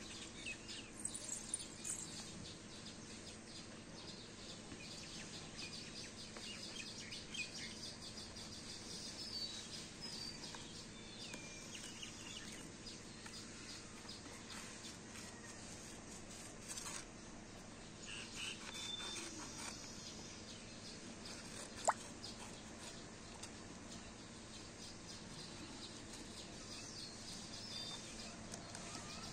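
Small birds chirping now and then over a faint steady hum, with a single sharp click about 22 seconds in.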